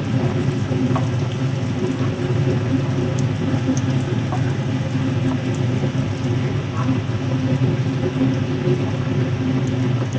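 Food frying in hot oil in a pan, sizzling steadily with small crackles, over a steady low hum.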